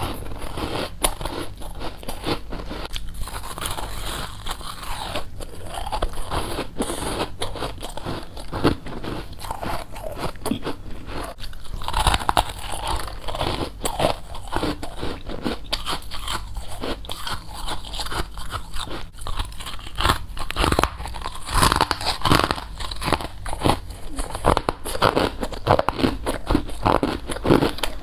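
Mouth biting into and chewing frost, a continuous run of crisp crunches.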